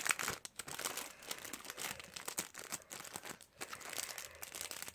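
Thin plastic sleeves and packaging crinkling irregularly as photocards and stickers are slid back into them by hand.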